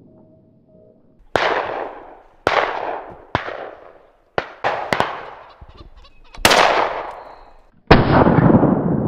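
A run of about eight shotgun shots, some fired in quick pairs, each with a sharp crack and an echoing tail. The last shot, near the end, is the loudest.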